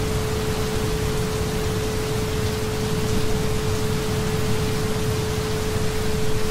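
Steady rain on a surface, with a single steady tone at about 432 Hz held beneath it.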